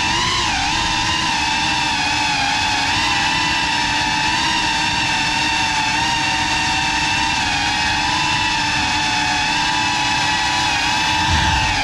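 Brushless motors and ducted propellers of a GEPRC Cinelog 35 cinewhoop FPV drone in flight: a steady, high multi-tone whine that wavers slightly in pitch as the throttle is held fairly even.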